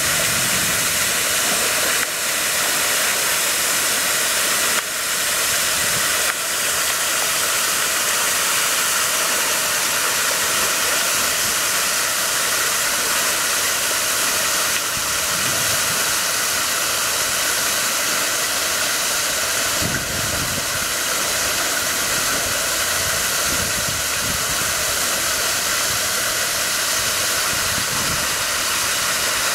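Steady hiss of falling water, with a few low splashes from a young elephant wallowing in the pool.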